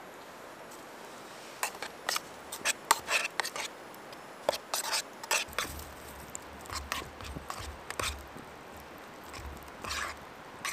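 Metal spoon clinking and scraping against a metal canteen cup while stirring oats in just-boiled water. The clicks come in a quick, irregular series, starting about a second and a half in.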